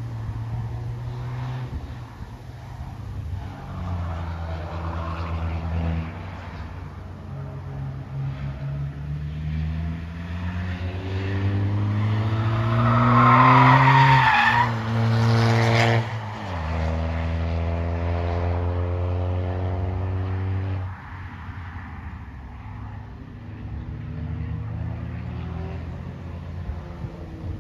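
Race car engines running on a circuit. One car climbs up through the revs and passes close by in the middle, with a wavering tyre squeal as it goes past. Its engine note then drops suddenly, and it pulls away rising in pitch until it lifts off a few seconds later, leaving quieter engines in the distance.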